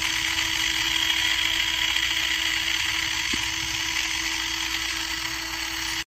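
Mini portable spin washing machine running its spin cycle, the small electric motor turning the basket at speed: a steady whir with a low hum held throughout.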